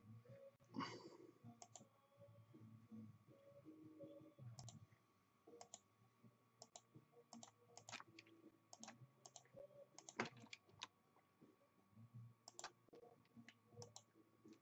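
Faint, irregular clicking of a computer keyboard and mouse being used, with a louder click about a second in and another about ten seconds in, over a faint steady tone.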